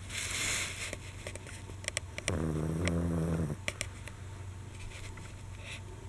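Small dog snoring in its sleep: a breathy, hissing breath at the start, then one low snore about two seconds in that lasts just over a second, with small clicking snuffles in between.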